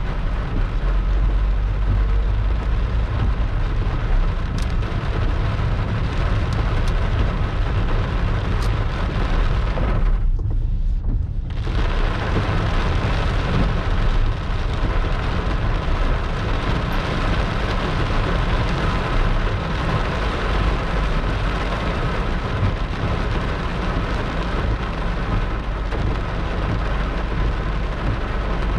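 Heavy rain pouring down steadily in a storm over a constant low rumble. About ten seconds in, the rain's hiss drops away for a second or so while the rumble carries on.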